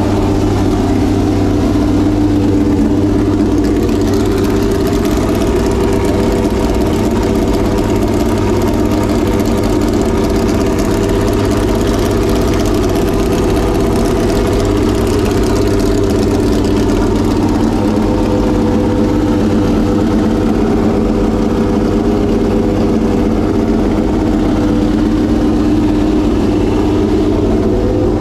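Homemade V12 race engine idling steadily through open, unmuffled exhaust headers.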